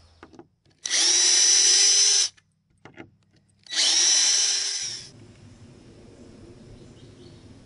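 Electric drill run twice, about a second and a half each time, its whine rising as it spins up and dropping as it winds down, while the old wooden display boards are taken apart.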